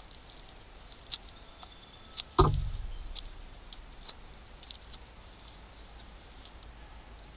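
Fixed-blade knife whittling a thin wooden stick: short scraping cuts and clicks spaced about a second apart, with one louder thump about two and a half seconds in.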